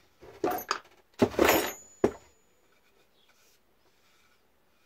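Clattering knocks with a metallic clink as wood and metal pieces are handled on a workbench: two bursts in the first two seconds, then only faint handling sounds.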